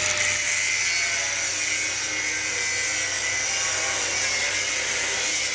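Power tool cutting metal pipe: a steady, high-pitched whine over a loud hiss.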